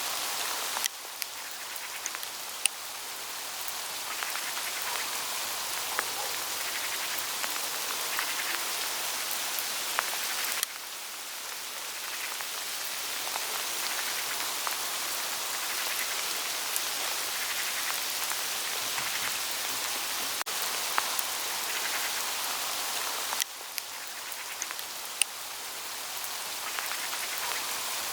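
Hail falling steadily on autumn leaves in a forest: a dense hiss with scattered sharper ticks of single hailstones striking. The level drops suddenly three times, about a second in, about ten seconds in and near the end, and builds back up after each drop.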